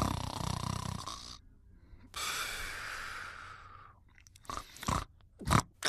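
A sleeping animal snoring. A rattling snore on one breath at the start, a long airy breath about two seconds in, then a few short, quick breaths near the end.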